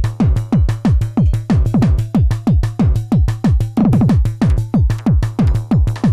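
Korg Electribe EMX-1 groovebox playing a live techno drum-machine pattern: a steady kick about two beats a second, quick falling-pitch drum hits in between, and a steady low bass note underneath.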